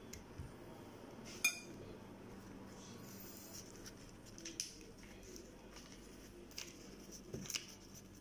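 A spoon clinking and tapping a few times while spooning lumpia filling onto a wrapper, with one sharper clink about one and a half seconds in. A low steady hum runs underneath.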